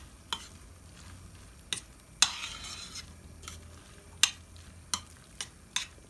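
Spoon stirring a thick corn and mushroom mixture in a stainless steel frying pan, clinking sharply against the pan about once a second, with a longer scrape a little over two seconds in. A faint sizzle runs underneath from the pan still on the flame.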